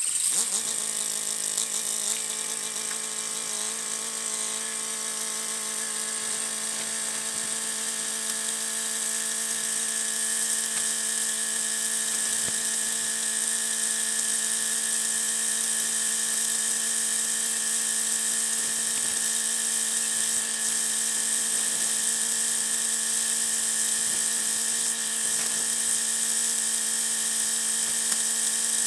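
Tractor diesel engine running steadily, its sound sped up by fast-motion playback into a steady high-pitched whine.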